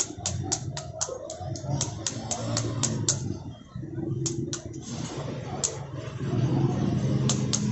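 Knife striking the back of a halved pomegranate to knock the seeds out: quick sharp taps about five a second. The taps pause after about three seconds, give way to a few single strikes, and come fast again near the end.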